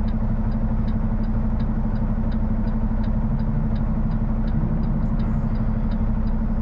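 Semi-truck's diesel engine idling in the cab while stopped, a steady hum, with a light ticking about three times a second.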